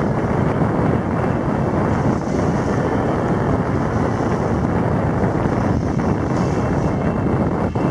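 Heavy wind noise on the microphone: a loud, steady rush, strongest in the low end.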